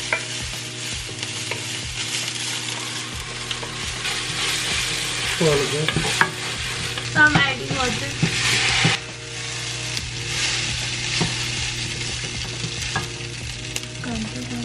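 Onion-and-tomato sauce frying and sizzling in a stainless steel pan, stirred with a wooden spoon, as soy sauce and then water are poured in; the sizzle grows louder in the middle. A wok frying alongside adds to the hiss.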